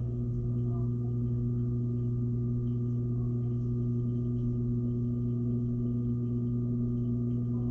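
Washing machine running its rinse cycle, heard from inside the drum: a steady, even hum with no change in pitch.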